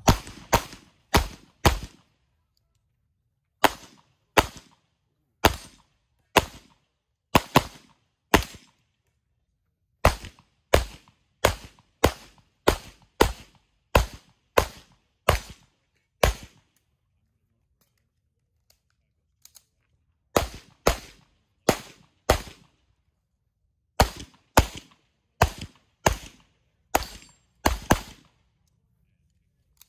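A 9mm pistol fired in rapid strings, about two shots a second, during a timed USPSA stage run. The strings are broken by pauses of one to four seconds, the longest about two thirds of the way through, and there are some forty shots in all.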